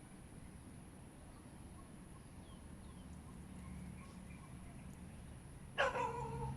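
A single loud dog bark near the end, sliding slightly down in pitch, over a faint steady background hum with a few faint high chirps.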